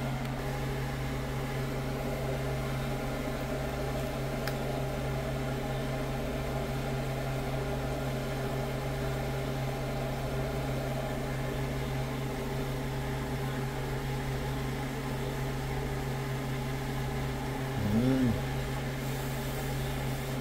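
Steady hum of an electric fan motor, with one short rising-and-falling pitched sound near the end.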